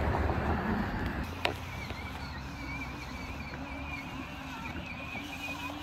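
Faint, slightly wavering high whine of a 24V ride-on toy UTV's electric drive motors as it drives across the yard. A low rumble fades out in the first second, and there is a single click about a second and a half in.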